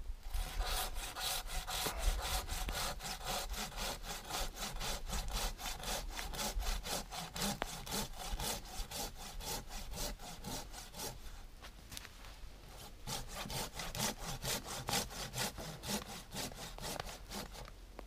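Silky BigBoy folding pull saw sawing through a birch log in quick, even strokes, about three a second, easing briefly about twelve seconds in before picking up again.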